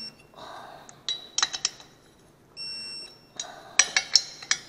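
Sharp metallic clicks of a wrench, in two quick clusters, as the cylinder head bolts of a Honda GXV160 engine are checked for tightness. Behind them, a high electronic beep of just under a second repeats about every two and a half seconds.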